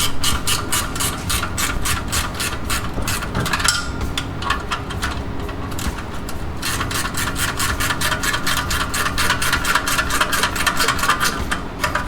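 Wrench working the 7/16 bolt on a motorcycle exhaust bracket: rapid, even clicking, about four or five a second, typical of a ratcheting wrench. It stops for about three seconds partway through, then starts again.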